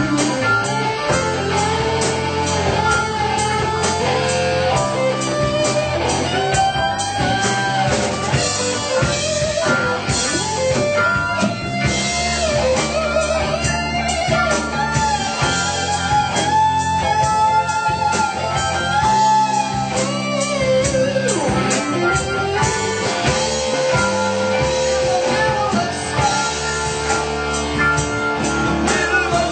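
Live rock band playing an instrumental passage: electric guitar lead with bending notes over bass guitar and drum kit.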